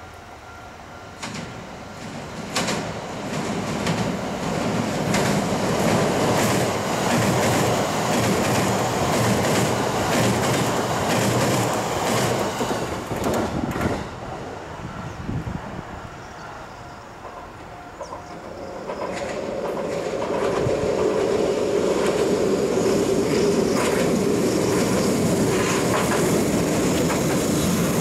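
Rail traffic on a bridge. A train passes loudly through the first half and dies away about fourteen seconds in. A Hiroden low-floor articulated tram then approaches and runs close by, with a steady mid-pitched hum as it nears.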